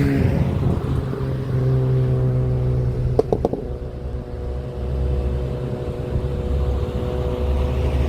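Heavy truck diesel engine running at a steady speed with a deep low rumble, and a brief cluster of knocks about three seconds in.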